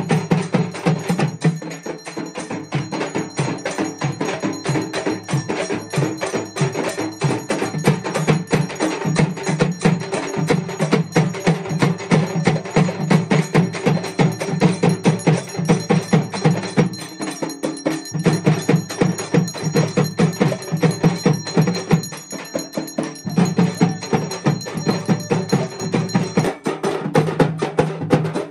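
Large hand-held frame drums (Tamil parai, or tapou) beaten in a fast, driving, unbroken rhythm, the drumming that accompanies a firewalk ceremony.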